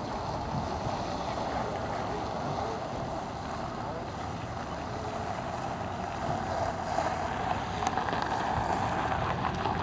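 1957 Chevrolet rolling slowly past at low speed, its engine running and its tyres crunching over gravel, growing louder about two-thirds of the way through as it comes closest. Voices in the background.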